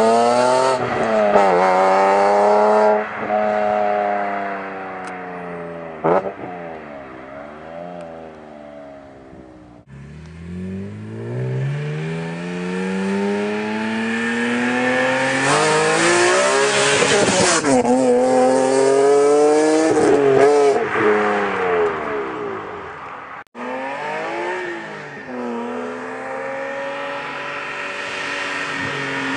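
BMW M3 E46's S54 straight-six through a titanium exhaust (mid-muffler delete pipe and rear silencer), revving hard up through the gears with rising pitch and drops at each upshift. Its sound fades away about six seconds in, then after a cut comes another hard run through several gears; a second cut near the end brings it back at lower revs.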